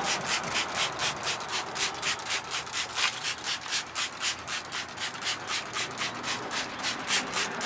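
Hand spray bottle squirting water onto a tire sidewall, pumped rapidly in quick hissing squirts, about five a second, to wet the tire before cleaning.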